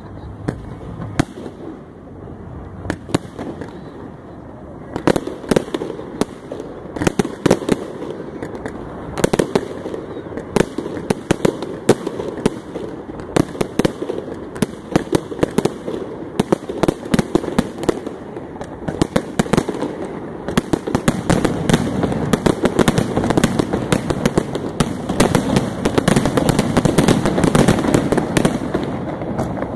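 Fireworks display: aerial shells bursting with sharp bangs, a few at first and then coming thick and fast from about five seconds in, growing louder and denser over the last third.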